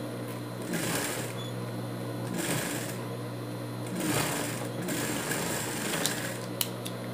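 Industrial straight-stitch sewing machine stitching through felt in short runs, stopping and starting every second or two, over a steady hum. Two sharp clicks come near the end.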